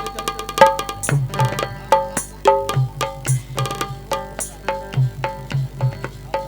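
Instrumental interlude of a Hindi folk song: hand drums in the tabla style play a brisk rhythm with deep bass strokes, under a repeated melody on a pitched instrument.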